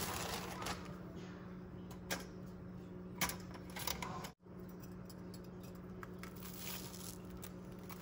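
A few sharp clicks and taps of small objects being handled, over a steady low hum, with an abrupt cut about four seconds in.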